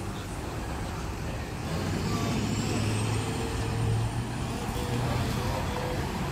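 Road traffic passing on the street: a truck drives by with its engine rumbling, growing louder about two seconds in, along with a faint high rising whine.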